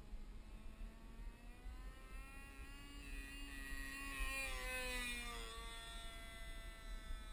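Evolution GX10 10cc two-stroke petrol engine of a Precedent T180 RC plane in flight. It buzzes louder as the plane comes closer, is loudest around four to five seconds in, then drops in pitch and fades as the plane passes and flies away.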